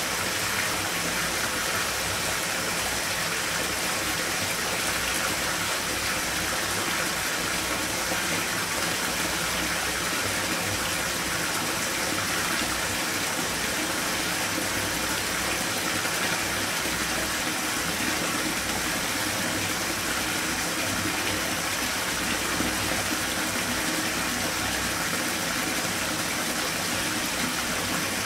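Bathtub filling from the tap: water pouring steadily into the tub with an even, unbroken rush.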